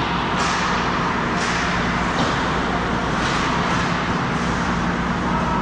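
Ice hockey skate blades scraping and carving the ice in repeated strides, a swish roughly once a second, over a steady low hum.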